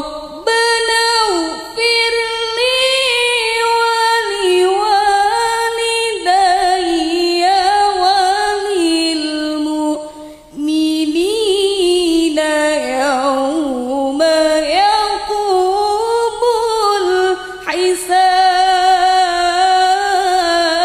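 A woman reciting the Qur'an in melodic tilawah style, unaccompanied, with long ornamented notes that bend up and down. The voice is amplified through a handheld microphone, and there is a short pause for breath about halfway through.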